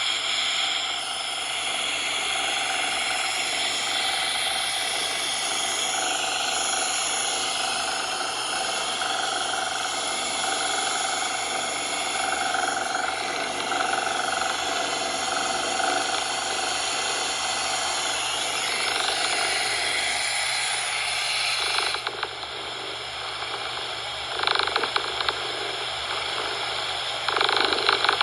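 Domestic cat purring, a rough steady rattle, blended with a steady synthetic coloured-noise hiss. About two thirds of the way through the noise changes character, losing its highest hiss, and a couple of short louder swells follow near the end.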